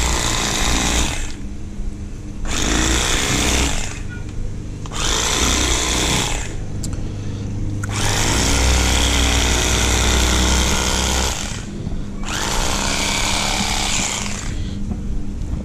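Electric fillet knife running in five spells of one to four seconds, with short pauses between, its blades sawing through alligator gar flesh along the top of the ribs.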